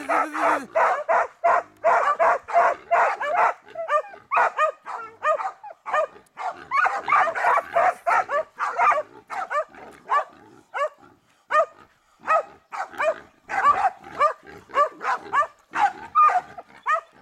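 Dogs barking in rapid, continuous volleys of short barks and yelps, several a second, with brief lulls around four and ten seconds in.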